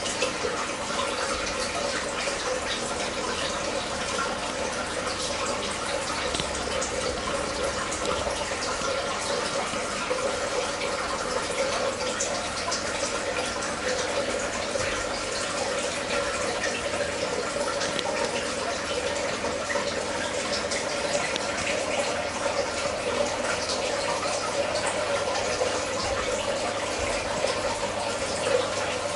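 Steady trickling, running water with a constant hum underneath.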